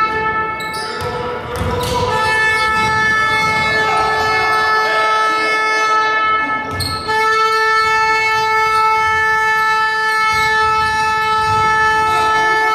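A horn sounding in long, steady held blasts that shift slightly in pitch twice, with faint low thuds underneath.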